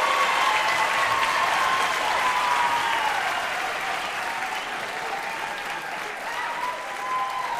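Crowd applauding with a few voices calling out over it; the applause slowly dies down over the last few seconds.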